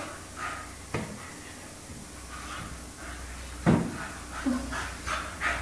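Staffordshire bull terrier and German shepherd puppy play-fighting: short scuffling noises, a light knock about a second in and a louder thump a little past halfway.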